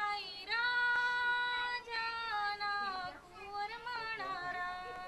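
A woman singing a devotional folk song without accompaniment, in a high voice with long held notes and glides between them.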